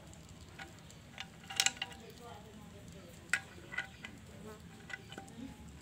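Scattered light metallic clicks and taps of motorcycle clutch parts being handled and worked loose inside an open clutch housing, with a quick cluster of sharper clicks about a second and a half in.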